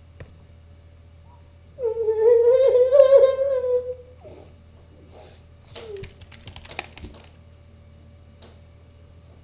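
A young person's drawn-out, wavering high-pitched whine lasting about two seconds. It is followed by a few scattered soft clicks of typing on a computer keyboard.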